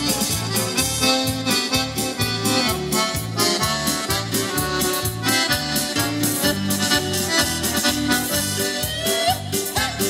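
Live accordion dance music: the accordion plays the melody over a steady, evenly pulsing bass beat.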